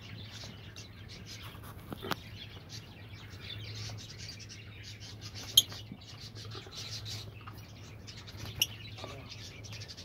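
Lovebirds chattering with a steady stream of quick, high chirps, with a sharp, loud call about five and a half seconds in and another near nine seconds, over a faint steady low hum.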